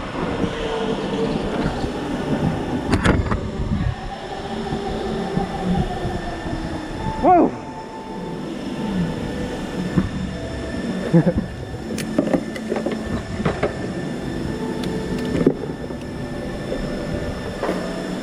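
Electric go-kart driven hard, heard from onboard: the electric motor whines, its pitch rising and falling with speed, tyres squeal briefly in the corners, loudest about seven seconds in, and sharp knocks come from the bumpy concrete surface.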